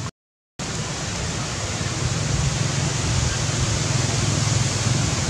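Steady hiss-like background noise with a low rumble underneath, broken by a half-second dropout to silence just after the start.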